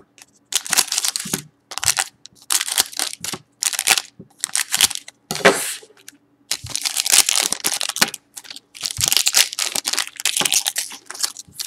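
Foil trading-card packs (Panini Prizm World Cup 2014) being snipped open with scissors and handled: a run of a dozen or so short, crisp crinkling bursts of foil wrapper with brief pauses between them.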